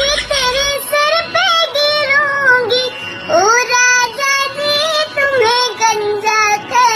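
A high-pitched voice singing a Hindi song line over music, the pitch held high like a child's voice.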